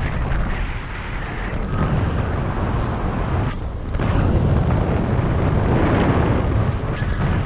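Airflow rushing and buffeting over the camera microphone of a paraglider in flight, with a short lull about three and a half seconds in.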